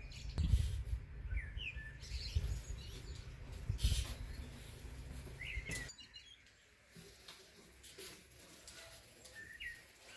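Small garden birds chirping, short rising calls every few seconds. Under them a low rumble and a few sharp knocks in the first half, which drop away about six seconds in.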